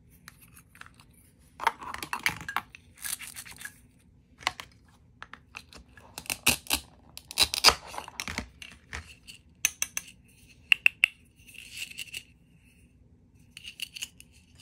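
Plastic toy food being handled: clicks and taps of plastic pieces set down on the table, then a plastic toy knife cutting a toy egg apart on a plastic cutting board with short scraping rasps, loudest about six to eight seconds in.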